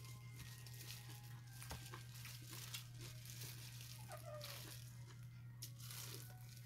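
Disposable plastic gloves crinkling in short, scattered rustles, with soft eating noises, as food is picked up and eaten by hand. A steady low hum sits underneath.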